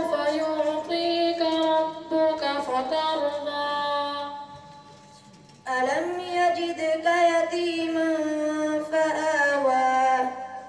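A boy's high voice chanting unaccompanied through a microphone in two long, drawn-out melodic phrases with a short pause between them.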